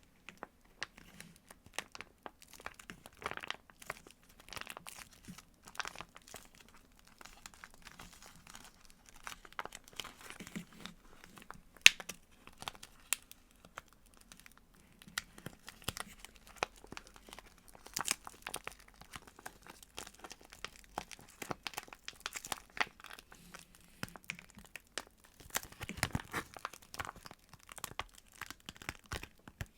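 Squishy toys squeezed and handled close to the microphone, giving a continuous irregular crinkling and crackling, with louder squeezes a few seconds in and near the end, and one sharp click partway through.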